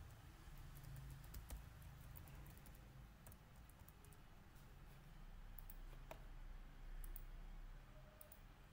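Faint, scattered clicks from a computer mouse and keyboard, irregular and sparse, over a low steady hum.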